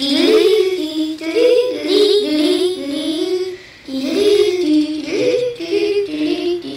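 A high, female-sounding voice singing a melody in short gliding phrases, with a brief pause a little before four seconds in.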